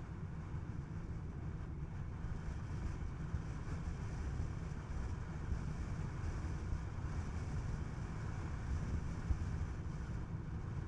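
Steady low rumble of road and wind noise from a moving car, a Skoda Kodiaq, cruising at an even pace.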